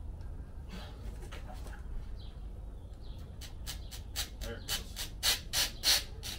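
Oil filter on a Mercury outboard being wrenched loose: a run of short squeaking, rasping strokes, about three a second, growing louder over the last two seconds.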